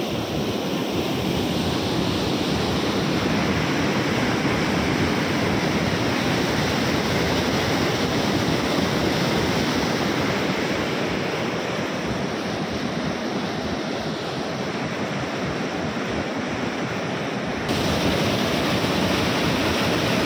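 Water rushing and churning hard through a narrow concrete channel, a steady, dense noise. It turns abruptly louder near the end.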